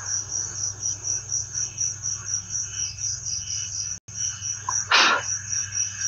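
Crickets chirping in a steady rhythm, about three pulses a second, over a low steady hum. About four seconds in the audio drops out for a moment, and about a second later there is a short burst of noise.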